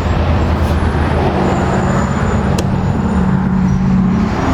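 Steady drone of motor-vehicle traffic or an idling engine in the background, with one sharp click about two and a half seconds in.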